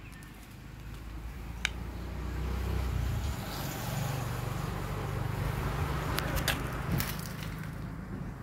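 Low engine rumble of a passing motor vehicle that swells over the first few seconds and eases off near the end, with a few sharp clicks.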